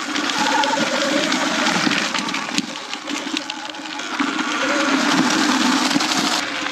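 Sur Ron X electric dirt bike being ridden along a dirt trail: the motor's whine drifts up and down in pitch with speed, over rolling tyre noise and a steady scatter of rattles and clicks from the chain and chassis.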